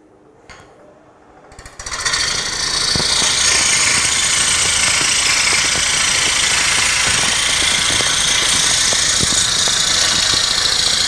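Bowl gouge cutting a spinning Bradford pear bowl blank on a wood lathe: after a quiet start the cut bites about two seconds in, and a loud, steady hiss of shavings being torn off holds from then on, with scattered faint ticks.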